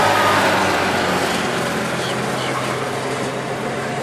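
A steady low motor hum under constant outdoor background noise.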